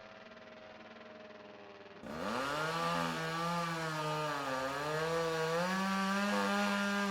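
A faint steady engine hum. About two seconds in, a chainsaw revs up loudly and runs at high throttle, its pitch rising and then wavering up and down.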